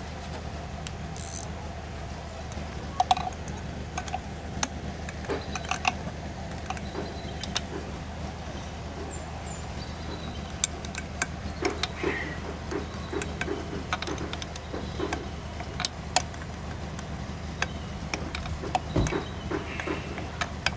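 Metal clinks, small knocks and taps of a wrench and small metal parts being handled on an outboard's tiller mounting, with runs of quick soft taps in the middle and again near the end, over a steady low hum.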